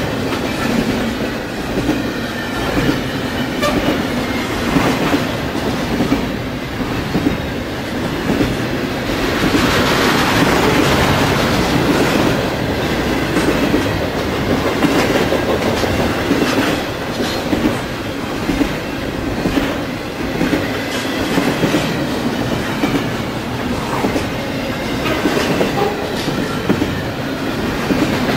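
Double-stack container train rolling past at close range: a steady rumble of steel wheels on rail, with a run of repeated clicks as the wheels pass.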